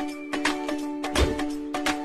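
Background music: held notes over a beat of percussion hits.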